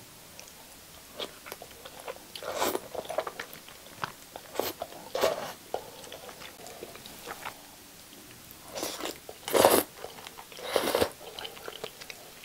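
Close-miked eating of jjajang instant noodles: slurping and chewing in irregular bursts, loudest about nine and a half seconds in.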